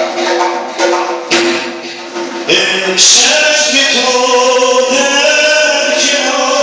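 Zurkhaneh morshed singing in a sustained, wavering male voice over strokes of the zarb, the goblet drum that keeps the rhythm for the club swinging. A few sharp drum strokes stand out in the first half, and the singing gets louder and fuller about three seconds in.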